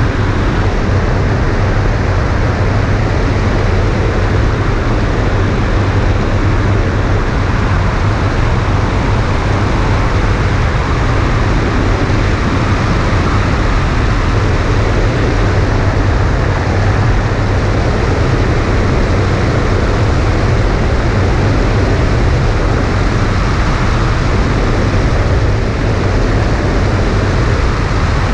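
Steady, loud rush of wind buffeting a camera mounted on an ultralight trike's wing in flight, deepest at the low end and unchanging throughout.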